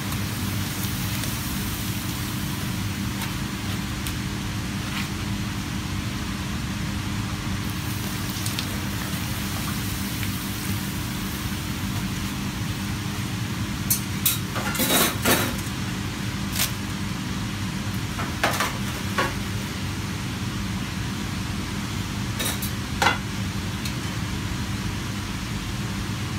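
A pappadom frying in hot oil, sizzling at first, over a steady low kitchen hum. In the second half, metal spatulas clink and clatter against the pan several times.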